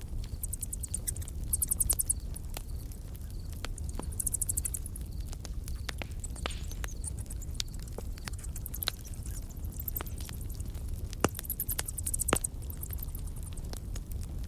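Campfire crackling: irregular sharp pops and snaps over a low steady rumble, with short bursts of a high-pitched, rapidly pulsing trill every few seconds.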